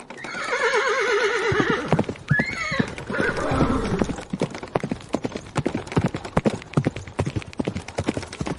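A horse neighs with a long quavering whinny, followed by a short high squeal. From about three seconds in, rapid hoofbeats of galloping horses take over.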